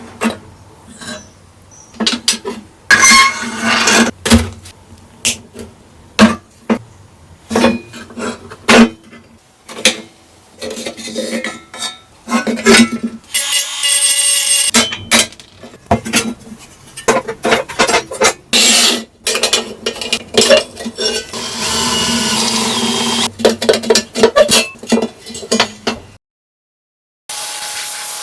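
Small metal parts and hand tools clinking, clicking and knocking irregularly as a pressed-steel Tonka toy truck is worked on, with a couple of short scraping or hissing stretches. Near the end it drops out for about a second, and then a steady sound begins.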